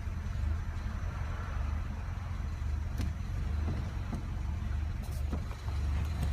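Z20NET 2.0 turbo four-cylinder petrol engine idling with an uneven low hum: the rough idle it develops after the fuel tank has been filled.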